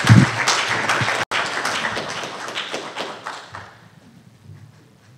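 Audience applauding, the clapping dying away about four seconds in. A low thud right at the start.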